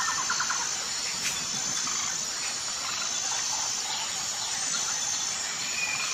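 Nature ambience: a steady hiss with faint chirping, opening with a fast run of chirps that fades out within the first second, and a single click a little over a second in.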